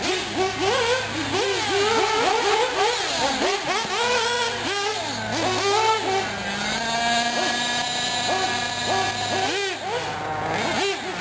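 Two 1/8-scale nitro R/C buggies lapping, their small glow engines revving up and down over and over through the corners. A little past halfway, one holds a steady high pitch for about three seconds before dropping off again.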